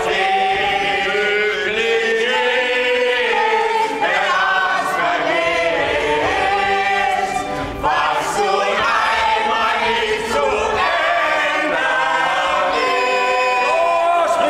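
A mixed group of men's and women's voices singing together in chorus, the held notes shifting in pitch without a break.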